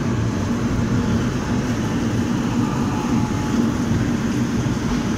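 Passenger train running, heard from aboard: a steady low rumble of the coach rolling on the rails with a faint constant hum.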